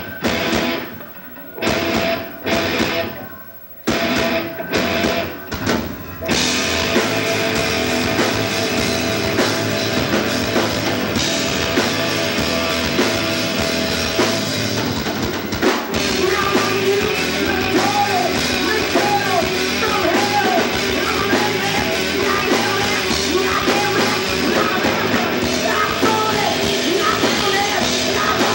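A live rock band of electric guitar, bass guitar and drums plays a run of stop-start hits with short breaks for about the first six seconds, then plays on continuously. A singer's voice comes in over the band in the second half.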